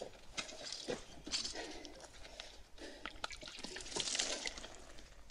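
Water poured from a small metal jug splashing into a cupped hand and dripping, in uneven spurts with small clicks.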